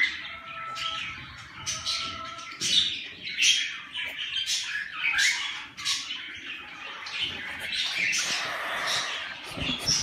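Young cockatiel chicks giving harsh, raspy squawks in quick succession, about one to two calls a second.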